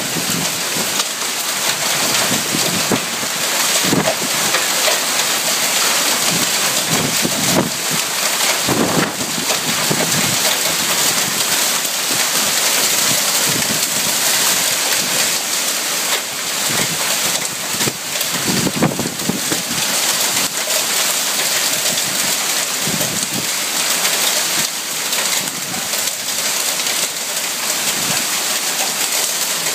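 Golf-ball-sized hail and heavy rain pelting down in a steady, dense hiss, with scattered sharper hits of stones striking.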